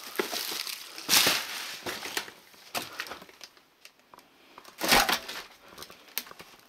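Footsteps crunching over debris and scattered wood scraps, in irregular crunches, the loudest about a second in and about five seconds in.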